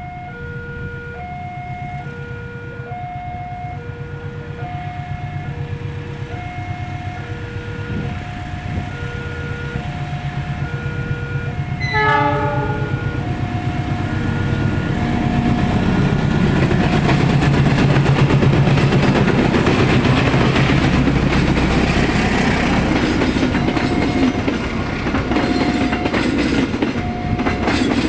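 A level-crossing alarm sounds an alternating two-tone electronic signal while a diesel-hauled passenger train approaches. About twelve seconds in the locomotive gives a short horn blast, and the train then passes with its wheels clacking over the rail joints as the alarm keeps going.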